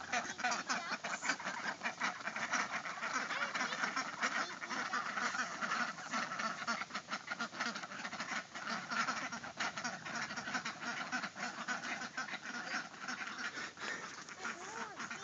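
A small flock of young ducks quacking continuously, many short calls overlapping.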